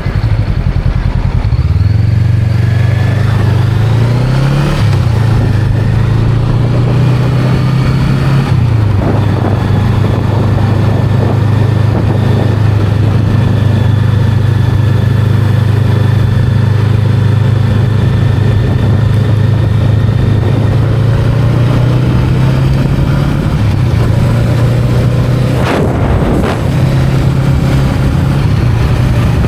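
Honda Rebel 500's parallel-twin engine under way, picking up about two seconds in, with its note shifting around four and eight seconds in, then running steadily. Near the end the revs dip briefly and there is a single knock.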